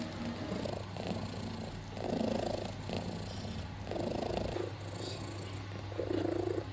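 A nursing domestic cat purring: a steady low purr that swells louder about every two seconds.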